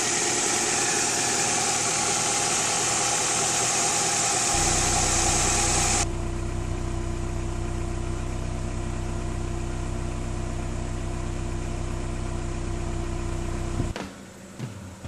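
Honda Prelude's H22A4 2.2-litre four-cylinder engine idling after its oil change and coolant flush, under a loud steady hiss that cuts off suddenly about six seconds in. The idle stops abruptly about a second before the end.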